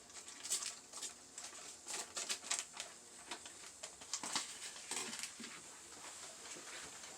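Light, irregular clicks and taps of kitchen prep: dishes and utensils being handled on the counter.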